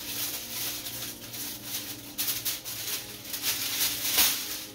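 Aluminium foil crinkling and rustling as a doubled sheet is handled and folded, with a louder crinkle about four seconds in.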